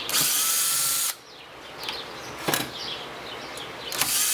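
Cordless drill driving out a ceiling fan motor's cover screws, two short runs of about a second each, one at the start and one near the end, with a light click in between.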